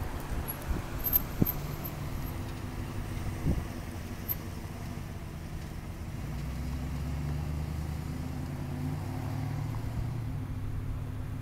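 An engine running, a low steady drone of several pitches that grows somewhat louder about six seconds in.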